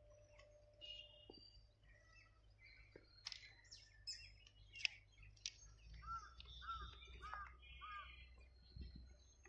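Faint bird chirps and calls, scattered throughout, with a run of four short repeated calls a little past halfway. A faint low rumble runs underneath and grows slightly in the second half.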